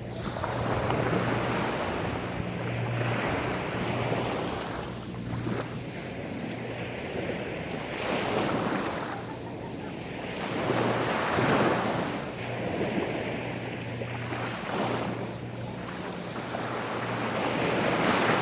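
Gentle sea waves washing onto a sandy beach, the rush swelling and falling back every two to three seconds, with a steady low hum underneath.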